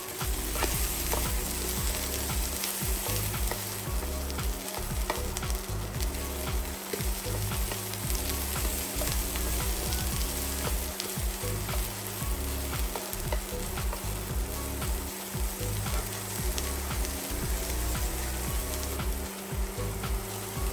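Sliced mushrooms and cherry tomatoes frying in olive oil in a frying pan, a steady sizzle with many small crackles, stirred now and then.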